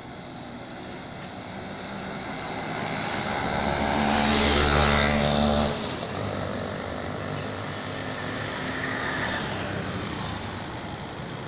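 A motor vehicle passing close by: engine and tyre noise builds over about five seconds to a peak, then drops off suddenly, leaving steady background traffic noise.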